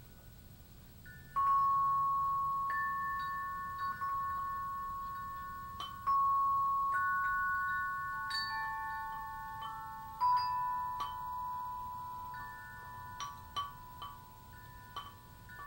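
Slow, sparse chime notes at a few different pitches, each struck sharply and left to ring out for several seconds so that the notes overlap.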